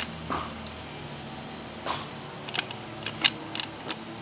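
Irregular metallic clicks and clunks from a starting handle being engaged and worked at the crankshaft of a 1930s Lister Junior type A stationary engine that is not running.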